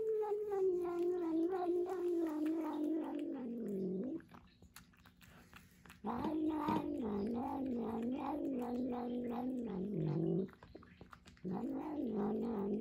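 A domestic cat making long, wavering, moaning yowls as it eats wet food off a plate, with the wet clicks of its chewing. Two calls of about four seconds each with a short pause between, and a third beginning near the end.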